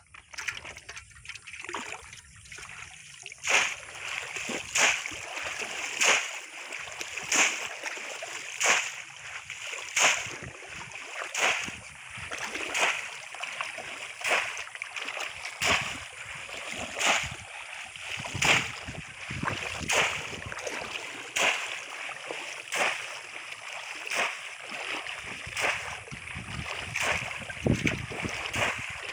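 A conical bamboo polo fish trap being driven down into shallow, muddy pond water and lifted out again while wading. It makes a splash about every second and a quarter in a steady rhythm, starting a few seconds in, with water pouring and sloshing between strokes.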